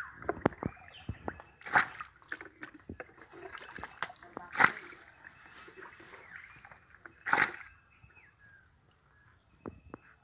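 Plastic jug scooping muddy water in a shallow flooded rice-field puddle: three loud splashes about three seconds apart, with smaller sloshing and dripping between.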